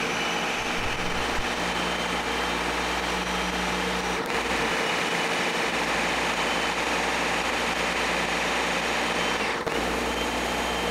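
Ninja Professional BL660 blender running steadily with a hum and whir, its blades churning frozen strawberries, orange sherbet and orange juice in the 72-ounce pitcher. The motor note dips briefly about four seconds in and again near the end.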